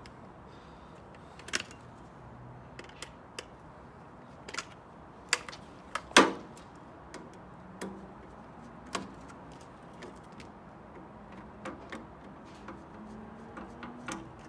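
Irregular clicks, taps and knocks of a screwdriver and plastic and metal parts as a microwave's control panel and circuit board are taken apart, with one louder, ringing knock about six seconds in.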